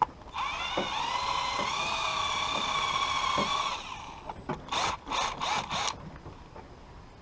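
Electric drill drilling out a rivet: the motor spins up to a steady whine for about three seconds, then stops, followed by four short bursts.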